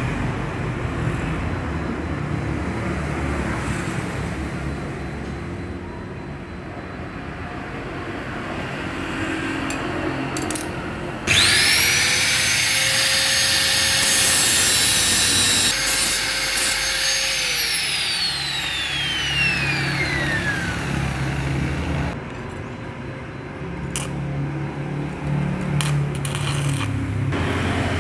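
Electric angle grinder starting up suddenly with a high whine, grinding on a motorcycle's magneto flywheel for about five seconds, then switched off and spinning down with a falling whine. Before it, scraping and rubbing noise from hand work on the part.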